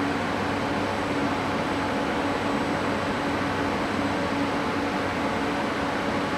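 ÖBB Talent electric multiple unit standing at the platform, its ventilation and auxiliary equipment giving a steady hum and whir with a low tone.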